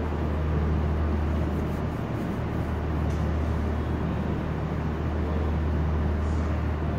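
Railway station ambience: a steady low engine hum under a constant wash of background noise.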